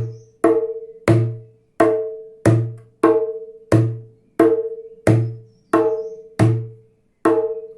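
Small djembe struck by hand in an even, unhurried run of about a dozen strokes, each a sharp slap ringing out with a low boom and a higher drum tone: the basic doom and tack strokes played one after another to let their sounds be heard.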